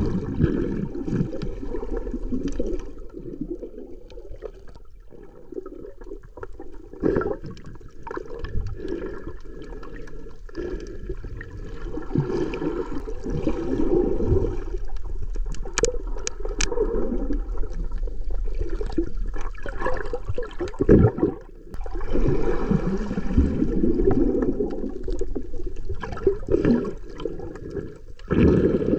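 Muffled rushing and gurgling of water moving around a camera held underwater, swelling and fading every few seconds. There are a few sharp clicks about sixteen seconds in.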